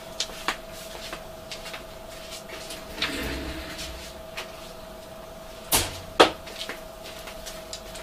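Someone rummaging in a workshop to find a meter: scattered light clicks, a short rustle, then two sharp knocks about half a second apart, like a cupboard or box being shut. A faint steady high hum runs underneath.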